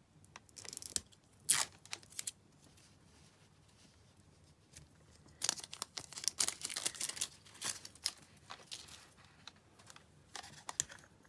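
Small plastic cosmetic jar of jelly blusher being unscrewed and unsealed by hand: scratchy plastic scraping and crinkling of the seal coming off, in irregular bursts that are busiest in the middle.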